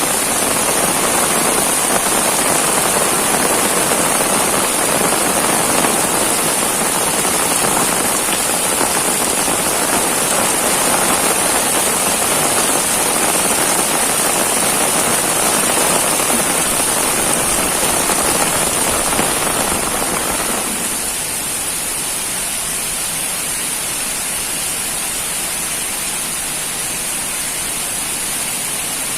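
Heavy rain pouring steadily. About two-thirds of the way through it turns a little quieter and thinner, then holds steady.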